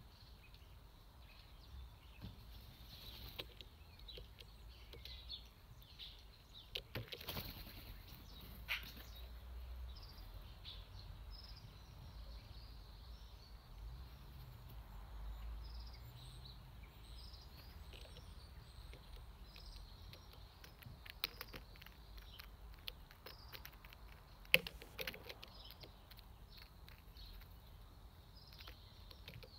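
Faint garden ambience: distant small birds chirping over a low steady rumble, with a few sharp taps, the loudest about three-quarters of the way through.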